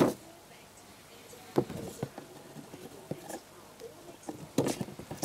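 Cardboard firework tubes and rockets being handled and knocked against each other, with several sharp knocks and some rustling.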